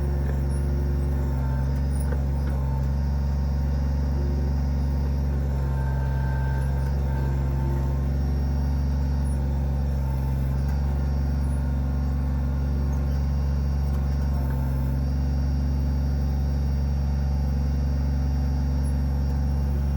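Kubota BX25D compact tractor's three-cylinder diesel engine running steadily under backhoe work, with faint higher tones coming and going over it.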